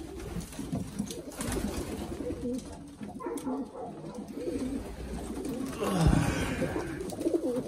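Domestic pigeons in a loft cooing, several low warbling coos overlapping, with a few sharp clicks and a louder rustling burst about six seconds in.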